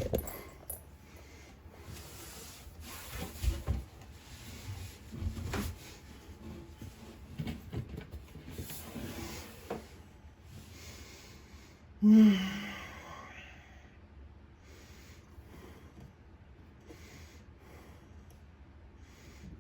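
Scattered rustling and small knocks of plastic drain parts being handled and fitted under a sink. About twelve seconds in comes a short, loud grunt.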